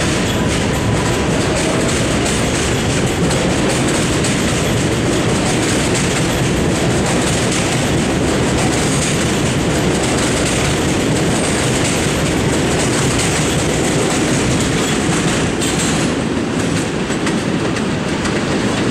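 Kawasaki R188 subway train pulling out of an elevated station, its steel wheels clattering over the rail joints with a loud, steady rumble. The noise eases slightly near the end as the last cars clear the platform.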